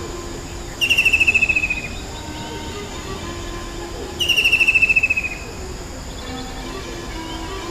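A songbird singing a rapid trill about a second long that falls slightly in pitch, heard twice a few seconds apart. Short lower notes and a faint steady high insect-like hum run beneath it.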